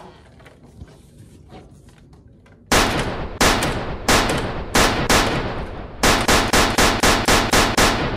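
Gunshot sound effects: after a quiet start, five single shots about two-thirds of a second apart, then a faster run of about three shots a second.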